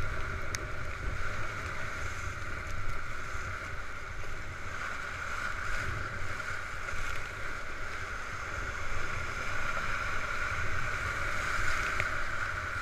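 Steady rush of whitewater rapids around a paddled raft, with a low rumble of wind buffeting the microphone.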